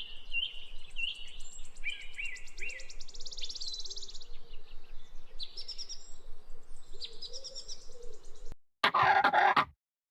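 Many birds chirping and trilling together in high, overlapping calls, which break off near the end, followed by one short, loud burst of sound lasting under a second.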